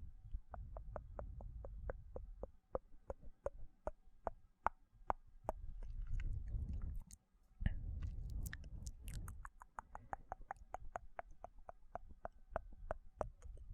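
ASMR mouth sounds close to the microphone: wet tongue clicks and lip smacks repeated at about three a second, in two long runs with a short pause between them.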